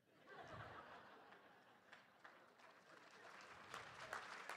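Audience applauding: the clapping starts softly and builds up over the seconds.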